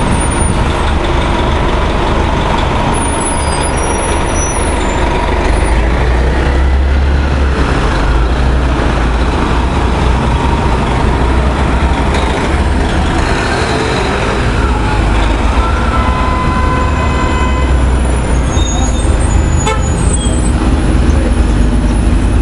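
Three city transit buses, an RTS-06, an Orion V and an Orion VII hybrid-electric, turning a corner one after another close by, their engines running loudly with a steady low rumble. A few short high squeals come through, near the start and again late on.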